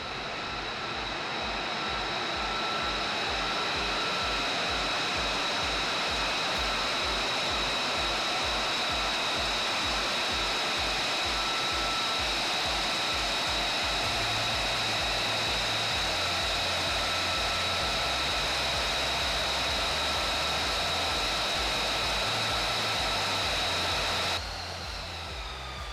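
F-35A Lightning II's single Pratt & Whitney F135 jet engine running with a steady high whine and rushing noise as the jet taxis in; near the end the level drops suddenly and the whine falls in pitch as the engine is shut down and spools down. A music track with a low beat and bassline plays underneath.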